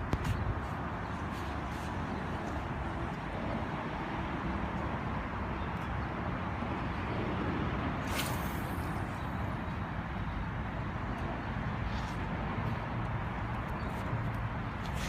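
Steady outdoor background noise with a low rumble, broken by a few faint clicks and a brief hiss about eight seconds in.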